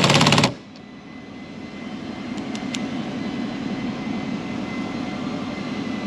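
A Milwaukee cordless impact driver hammering in a door-panel screw, cutting off suddenly about half a second in. A steady low rumble follows and slowly grows louder.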